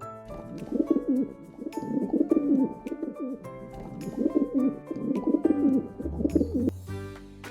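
Birds cooing over and over, a low wavering call about once a second, over background music.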